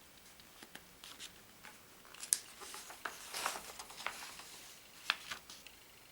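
Pages of a large paper magazine being handled and turned: paper rustling with a few sharp snaps, the loudest about two seconds in and again about five seconds in.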